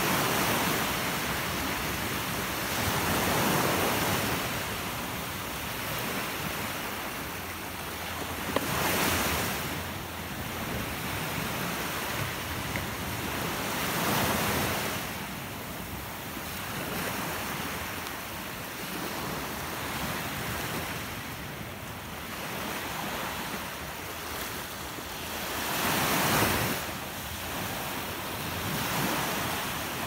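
Small sea waves breaking and washing up a sandy beach, the surf swelling and easing every few seconds, with some wind on the microphone.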